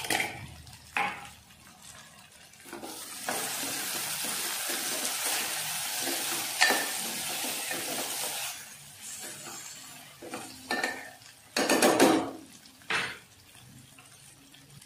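A steel spoon stirring and scraping vegetables in a metal cooking pot, with a long stretch of rustling, sizzling scraping in the middle. Sharp clinks and knocks of the spoon against the pot come near the start and again toward the end.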